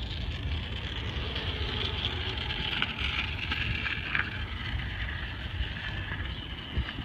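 Steady rolling noise of skate and scooter wheels on asphalt, a continuous hiss, under a constant low rumble of wind buffeting the microphone while moving.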